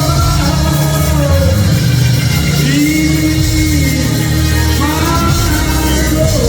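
Live gospel music from a church band: a steady bass line under long held, gently gliding melody notes.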